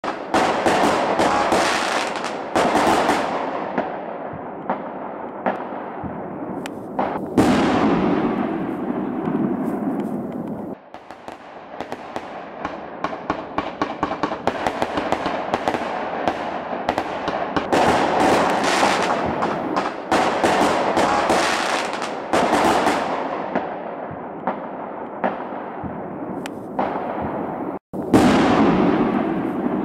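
Aerial fireworks going off one after another: a string of sharp bangs, each followed by a long fading rumble. About eleven seconds in comes a run of rapid crackling from crackle stars.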